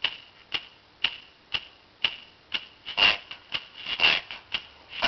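Steady ticking, about two sharp ticks a second, like a clock counting off, with two fuller, louder hits about three and four seconds in.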